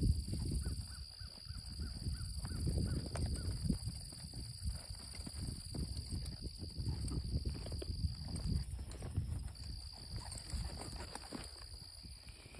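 Outdoor ranch ambience: a steady high insect drone, with a bird calling a quick run of about eight short notes about half a second in. Irregular low rumbling underneath is the loudest sound.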